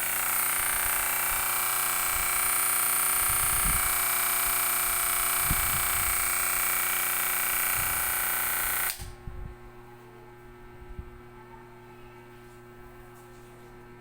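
Electric hair clipper running with a steady buzz, with a few dull knocks from handling, then switched off abruptly about nine seconds in, leaving only a faint steady hum.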